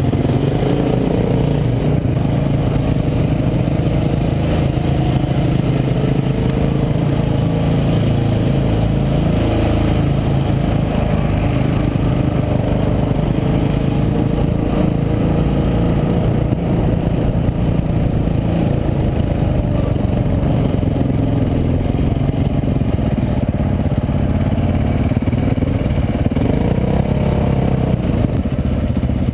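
Dirt bike engine running under way, its pitch rising and falling gently with the throttle.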